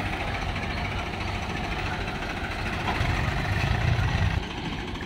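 Swaraj 735 FE tractor's three-cylinder diesel engine labouring as it tries to pull a loaded trailer through soft sand. It gets louder about three seconds in and drops back shortly before the end.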